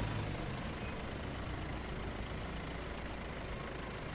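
A steady low rumble, with faint cricket chirps repeating over it.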